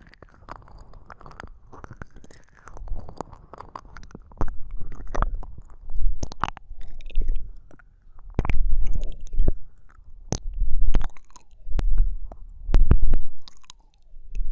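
Slow, wet ASMR ear licking into a binaural microphone: irregular wet clicks and smacks with muffled low thumps as the mouth presses on the mic ear. It is soft at first and grows louder after a few seconds.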